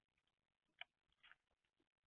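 Near silence with a few faint clicks and taps: birds pecking at seed on a feeder. A sharp click comes a little under a second in, then a short cluster of taps.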